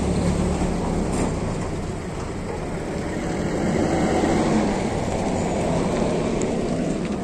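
A box-bodied utility truck and then a Nissan pickup drive past one after the other on a dirt road: steady engine hum with tyre noise on the dirt.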